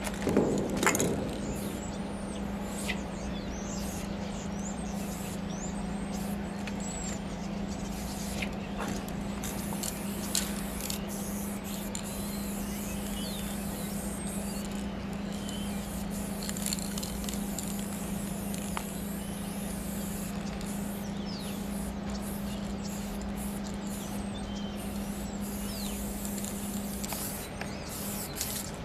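Aerosol spray-paint cans hissing in short and longer bursts as paint goes onto a freight car's side, over a steady low hum at one constant pitch. A few loud knocks sound right at the start.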